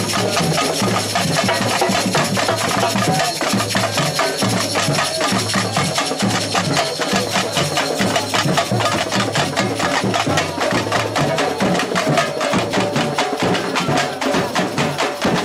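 Samba batucada percussion band playing a fast, steady groove: deep bass drums pulse under dense, even, sharp high strikes.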